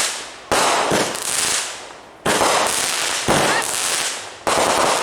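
Consumer fireworks going off: four sudden loud bangs at irregular intervals, each fading out over about a second.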